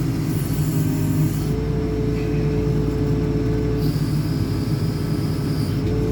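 JCB 4CX backhoe loader's diesel engine running steadily under load while the rear backhoe boom is worked. A steady whine, typical of the hydraulics under load, comes in about one and a half seconds in, drops out near four seconds, and returns near the end.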